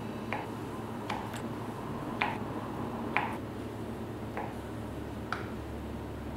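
Kitchen knife cutting through a block of softened butter, its blade tapping the wooden cutting board with each slice: about seven short clicks at uneven intervals, over a steady low hum.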